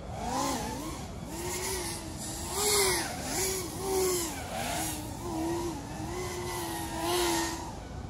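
FPV racing quadcopter's brushless motors whining, the pitch swinging up and down quickly as the throttle is worked through the course, flown on a 60% throttle limit. A rush of propeller noise swells in several times, loudest a little under three seconds in and again near the end.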